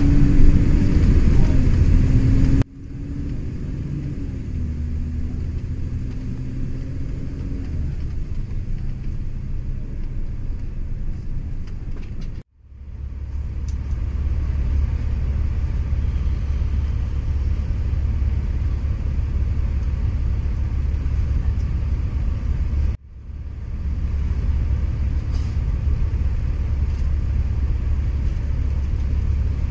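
Engine and road rumble of a moving bus, heard from inside the cabin, low and steady. The engine note sinks a little over the first few seconds. The sound cuts out abruptly three times and fades back in each time.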